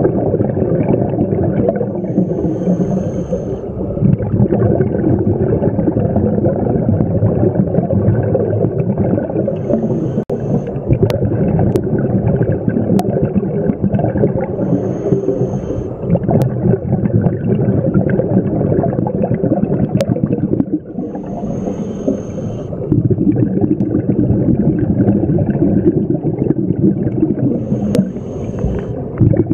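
Scuba breathing through a regulator, heard underwater: long stretches of rumbling exhaust bubbles, broken five times, about every six seconds, by a short inhalation with a thin high hiss from the regulator. A few faint sharp clicks sound now and then.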